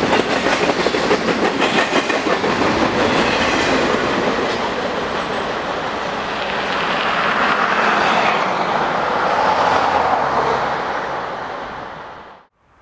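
Double-stack container freight train passing, its wheels clicking over the rail joints, then rumbling on as it moves away. The rumble fades and cuts to silence just before the end.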